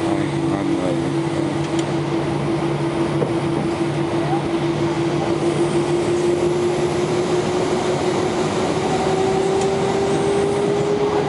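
Airbus jet airliner heard from inside the cabin while taxiing: a steady engine hum and rush with a whine that starts to rise slowly in pitch in the last few seconds, as the engines begin to spool up.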